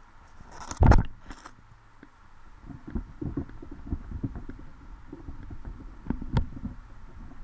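Muffled underwater knocks and thumps picked up by a GoPro in its waterproof housing: one loud sharp knock about a second in, then irregular low bumps and clicks.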